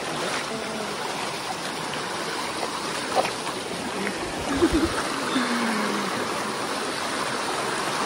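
Shallow rocky stream rushing over and between stones, a steady, even rush of water close by.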